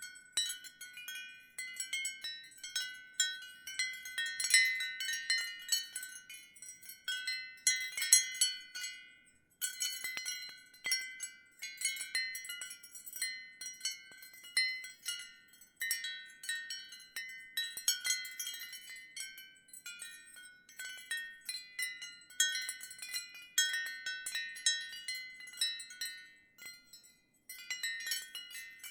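Ceramic wind chimes knocking together in irregular clusters, each strike a short, bright, high ring. There are brief lulls about ten seconds in and again near the end.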